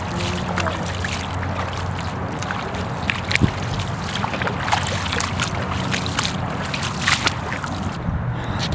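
Footsteps wading through shallow standing floodwater, a run of irregular splashes and sloshes that stops near the end as the walkers step out onto dry ground.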